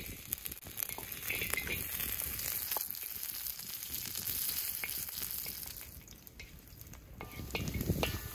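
Lamb tail fat sizzling as it is dropped onto a hot wide iron pan, the sizzle starting suddenly as the pieces land and carrying on as the fat renders. A wooden spatula pushes the pieces around, with scattered scrapes and taps on the metal, louder near the end.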